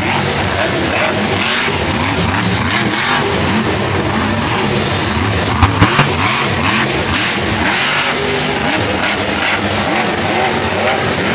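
Monster truck engine revving hard and repeatedly, its pitch rising and falling as the truck drives and jumps. About halfway through there are three sharp bangs in quick succession.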